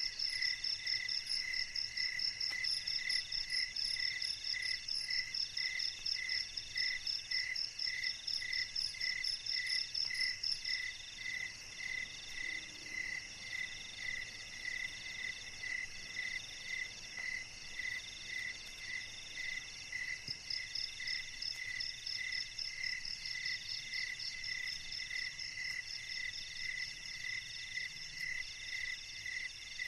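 Chorus of night insects calling: one pulses about twice a second, a higher one trills in bouts of about a second, and a very high rapid trill stops about eleven seconds in and starts again about twenty seconds in.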